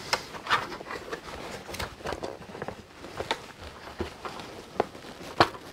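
Hard plastic parts of a Hasbro Tantive IV Corridor playset being handled and pushed together: scattered, irregular clicks and knocks of plastic against plastic as a door element is fitted to a wall section.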